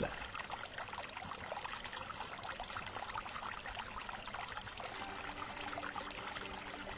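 Water trickling and splashing from a fountain tap into a stone basin. Faint music with held tones comes in about five seconds in.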